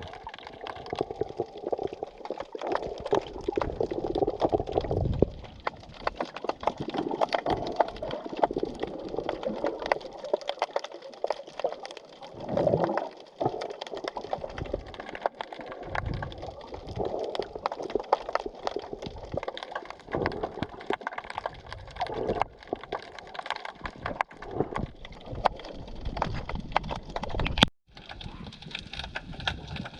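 Natural sea sound recorded while snorkeling: water sloshing and gurgling around a submerged camera, swelling and ebbing, over a constant dense crackle. The sound cuts out for a moment near the end.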